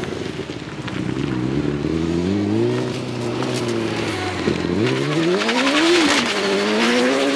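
Formula SAE race car's four-cylinder engine revving hard as the car is driven through a slide: the pitch climbs, drops sharply about four and a half seconds in, then climbs again, with a rising hiss of tyre noise in the last few seconds.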